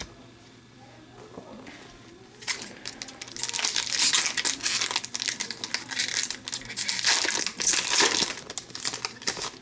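Plastic wrapper of a 2014-15 Upper Deck Series 1 hockey card pack crinkling and crackling as it is handled and torn open. It starts about two and a half seconds in and is loudest around halfway and again near the end.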